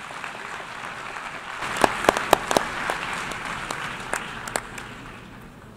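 Audience of delegates applauding a finished speech. A few sharp, louder claps stand out about two seconds in, then the applause fades.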